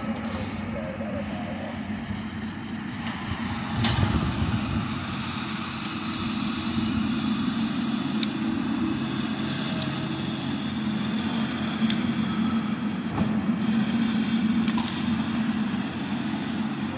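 Diesel engine of a John Deere grapple skidder running steadily as the machine drives in. It gets louder about three to four seconds in, with a few short metallic clanks.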